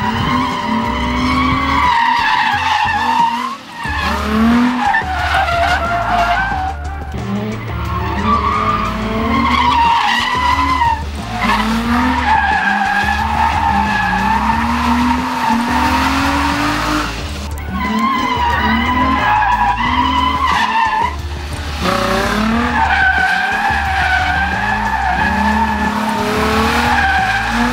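Nissan 350Z's 3.5-litre V6 revving hard while its tyres squeal through a drift, the revs rising again and again. Background music with a steady bass beat plays underneath.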